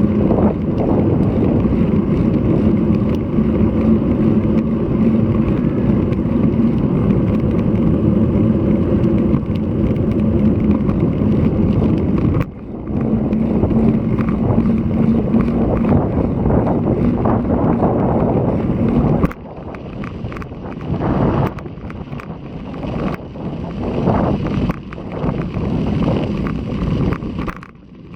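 Wind blowing hard across an action camera's microphone as a road bike is ridden, a dense low rumble with a steady low hum under it. About two-thirds of the way in it drops off and turns gusty and uneven.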